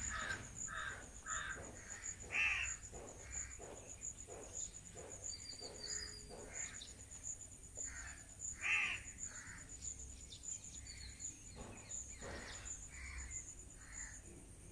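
Birds calling over and over in short, harsh calls, loudest about two and a half seconds and eight and a half seconds in, over a steady high insect trill.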